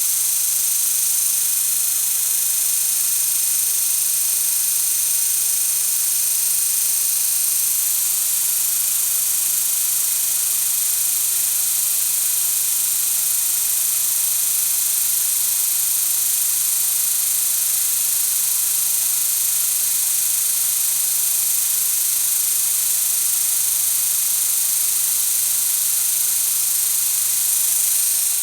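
Lincoln SA-200 Blackface engine-driven welder running at a steady speed, a steady hum with a lot of hiss, as its engine rpm is checked after a governor adjustment.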